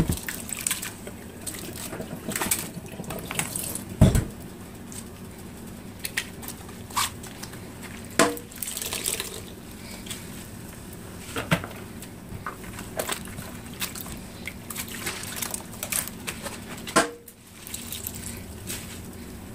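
Chopped waterleaf being washed by hand in a bowl of water in a stainless-steel sink: steady sloshing and splashing as handfuls are squeezed out into a plastic colander, washing off the leaves' slime. A couple of sharp knocks stand out, one at the very start and one about four seconds in.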